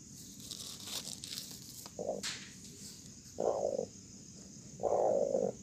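Broody hen growling in short, rough bursts, about four in a few seconds, as eggs are pushed under her: the grumble of a sitting hen disturbed on her nest. Crickets chirp steadily behind.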